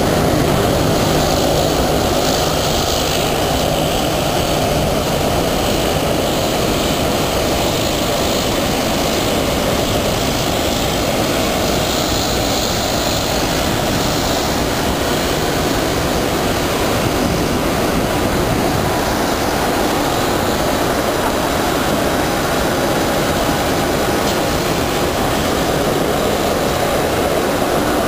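Jet aircraft engine noise, a steady, unbroken rushing.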